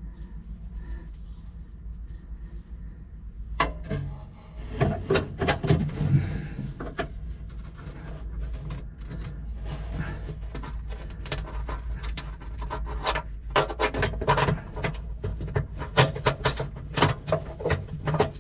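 Hand-work handling noise: irregular rubbing, scraping and clicking of small parts and tools on the fuel shutoff valve fittings. It starts about three and a half seconds in and runs over a steady low hum.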